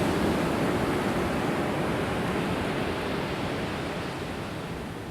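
Pacific Ocean surf washing on a rocky shore, a steady rushing that slowly fades over the few seconds.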